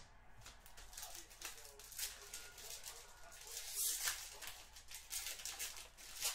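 Foil trading-card pack wrapper crinkling as it is handled and torn open, with a louder tearing crackle a little before the midpoint.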